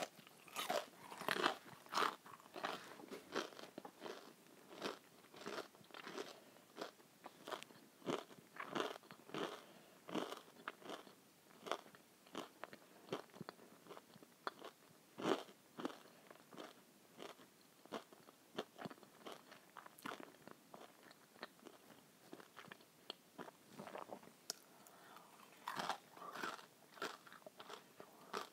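A person chewing breaded schnitzel close to the microphone: irregular crunches and wet mouth sounds, busiest in the first few seconds and again near the end.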